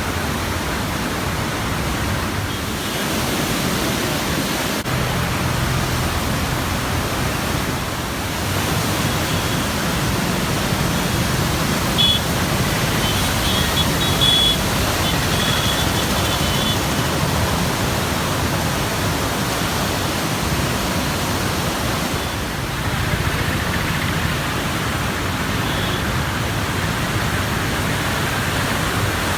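Heavy floodwater rushing through the open gates of the Krishna barrage: a steady, loud roar of water with no letup.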